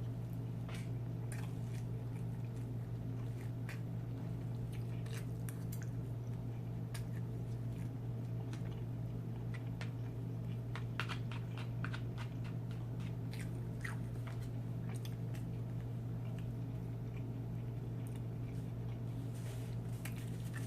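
Close-miked chewing and biting of Chinese takeout food, with scattered small crunches and wet mouth clicks. A steady low hum runs underneath.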